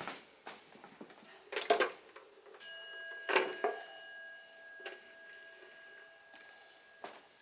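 Light clicks and knocks of handling, then about two and a half seconds in a metal object is struck and rings with a clear, bell-like tone that slowly fades over several seconds; a few more clicks follow.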